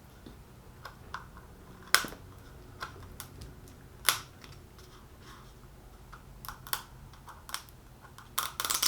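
Scattered sharp plastic clicks and crinkles from a toy blind capsule being handled and opened: single clicks about two and four seconds in, a few more later and a quick flurry near the end.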